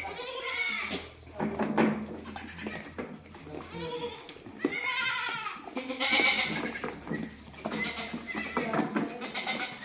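Goats bleating repeatedly, with several long calls following one another.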